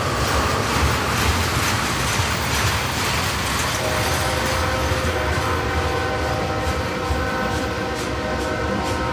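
CSX freight train running past with a steady rumble of wheels on rail. About four seconds in, the locomotive's horn starts sounding a held chord of several notes, and it is still going at the end.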